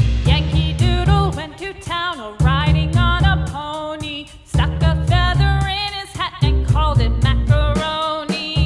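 Background music: a wavering melody line over a pulsing bass.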